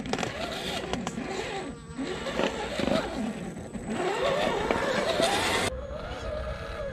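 A 1/10-scale RC crawler truck's electric motor and gearbox whine, the pitch rising and falling with the throttle as the truck drives over loose soil. Near the end the sound cuts abruptly to a quieter, steadier motor whine.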